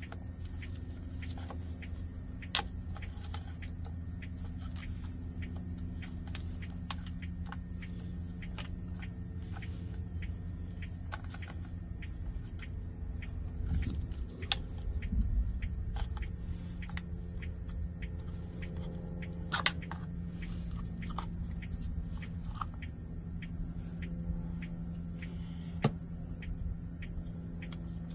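Scattered small clicks and knocks of plastic engine-bay parts and fittings being handled under the hood, with three sharper clacks, over a steady low hum.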